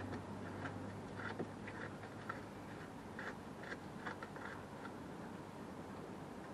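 Ratchet clicking in short, irregular strokes, about two or three clicks a second, as a bolt on the van's cover is undone, over a low steady hum.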